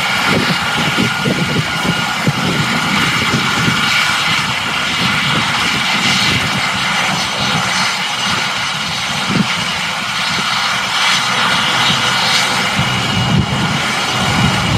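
AgustaWestland AW139 twin-turbine ambulance helicopter running on the ground with its rotors turning: a steady turbine whine over the rapid low beat of the rotor blades, the beat strongest at the start and again near the end.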